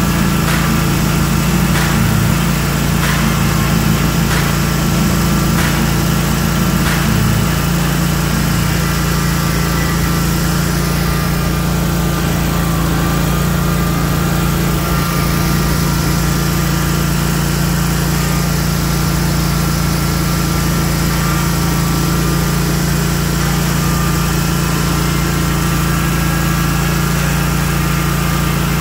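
Stand-on zero-turn mower's engine running steadily as the mower travels, with a few light clicks in the first several seconds.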